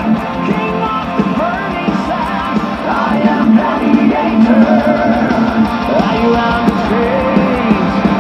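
Rock music with singing and guitar, played back loudly through an Altec Lansing VS2621 computer speaker system with its subwoofer.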